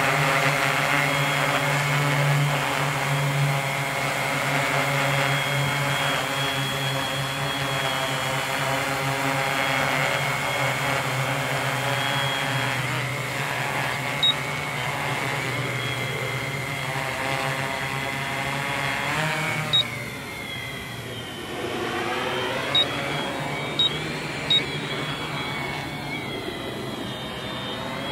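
Tarot FY680Pro hexacopter's six brushless motors (NTM 3536 910kv) driving 12x3.8 APC propellers: a steady multirotor buzz with a whining pitch that wavers as the flight controller holds it in the air. About twenty seconds in it drops in level and the pitch sweeps up and down as the craft flies away. A few very short high blips come through in the second half.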